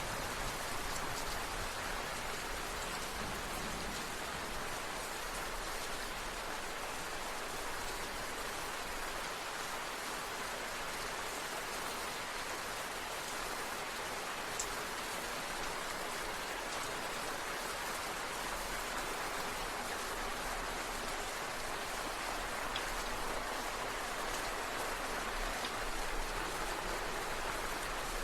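Steady rain falling: an even, unbroken hiss of rain with a fine patter of drops.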